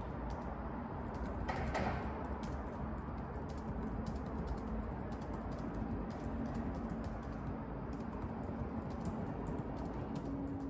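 Fingers typing on a laptop keyboard: quick, irregular key clicks over a steady low background rumble, with a brief louder noise about two seconds in.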